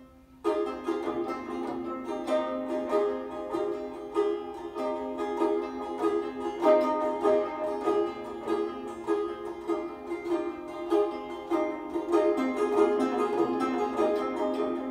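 Kamancheh played solo: a busy, fast-moving melody over a steady low held note, entering loudly about half a second in after a quiet passage.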